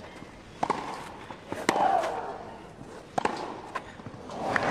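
Tennis rally on a grass court: sharp racket hits on the ball roughly once a second, one with a player's grunt. Crowd noise swells near the end.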